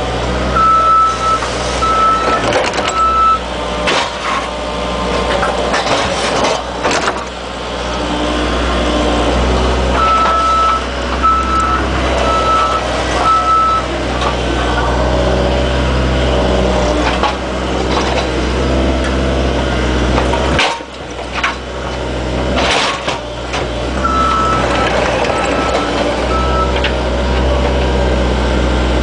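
Excavator's diesel engine running with a steady low drone while its travel alarm beeps in three short runs of evenly spaced beeps, about one to two a second, near the start, in the middle and near the end. Knocks and cracks from the work sound over it, and the engine noise drops out briefly about two-thirds of the way through.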